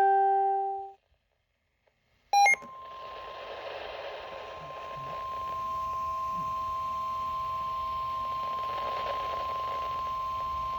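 A ringing chime fades out in the first second. After a short silence and a brief electronic blip, the NOAA Weather Radio 1050 Hz warning alarm tone sounds as one steady, unbroken high beep of about nine seconds over radio hiss. It signals that a weather warning broadcast follows.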